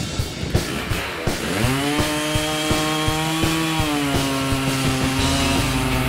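Two-stroke chainsaw revving up sharply about a second and a half in, then running at full throttle as it cuts through a log, its pitch sagging a little under the load of the cut.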